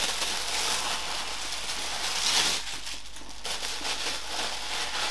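Plastic packaging rustling and crinkling as it is handled, an irregular papery rustle that swells briefly about two seconds in.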